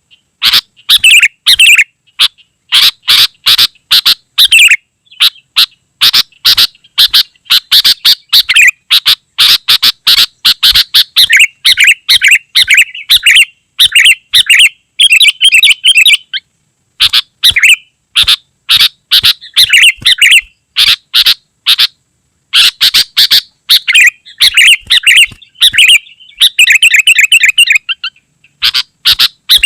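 Sooty-headed bulbul (kutilang) calling in rapid, almost unbroken strings of short chirping notes, with brief pauses.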